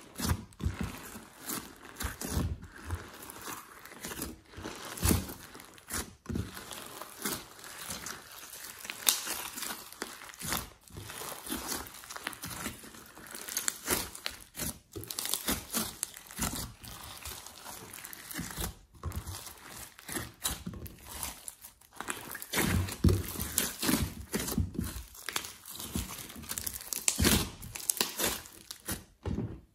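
Hands kneading, stretching and pressing a large mass of glossy slime mixed with clay and glitter, giving a steady stream of irregular crackles and clicks. The crackling gets louder and denser about two-thirds of the way through.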